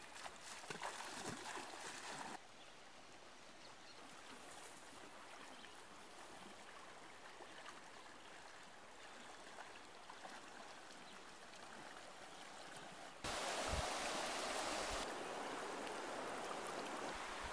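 Shallow river flowing over a stony bed: a steady rushing of water. The sound changes abruptly about two seconds in, and it grows louder, with a few low bumps, near the end.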